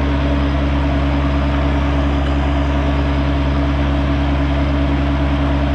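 Kubota excavator's diesel engine running at a steady, unchanging speed: a constant low drone with no revving.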